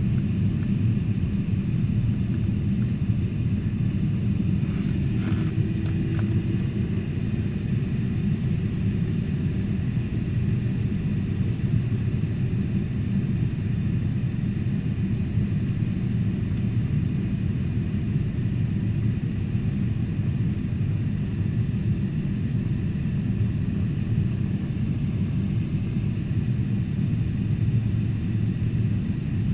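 Steady low drone of a Boeing 747-400 in flight, engines and airflow heard as cabin noise, with a brief faint sound about five seconds in.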